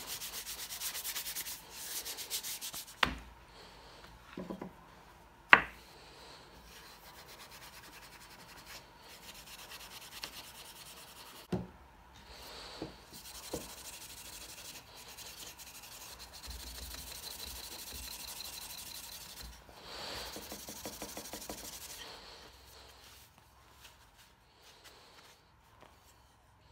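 A pad rubbing boiled linseed oil into a wooden saw handle: stretches of dry scrubbing over the first few seconds and again for much of the second half, with a few sharp knocks between them, the loudest about five seconds in.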